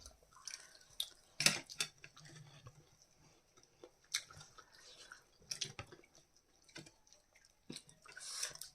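Faint, irregular small clicks and taps with brief rustles, the sounds of small objects being handled in a small room.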